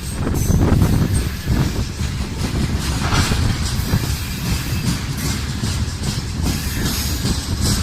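Train wheels clattering over the rail joints as railway cars roll past, over a steady deep rumble.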